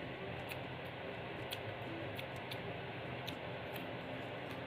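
Close-up mouth sounds of chewing a crisp lettuce leaf wrap: irregular wet, crunchy clicks over a steady hiss.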